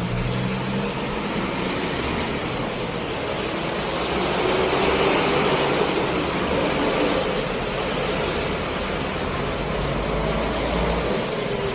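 A motor vehicle running with a steady, noisy rumble, with a short rising whistle near the start.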